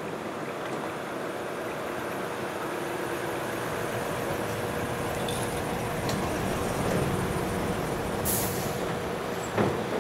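Decorated heavy truck's diesel engine running as the truck rolls slowly past, growing louder as it nears. A short air-brake hiss comes near the end, followed by a sharp clack.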